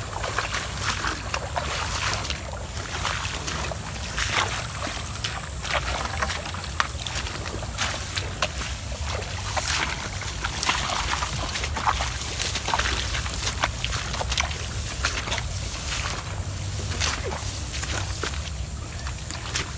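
Footsteps of people walking through tall grass, with irregular swishing and rustling of the stalks, over a steady low rumble.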